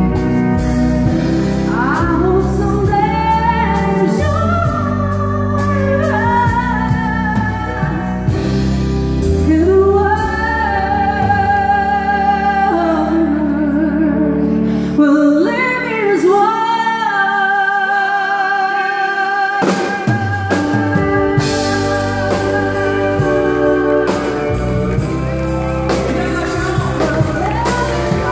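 Live country-western song: a woman singing with vibrato over electric keyboard, bass and drums. About halfway through, the bass and drums drop out for a few seconds, leaving the voice holding long notes over the keyboard, then they come back in.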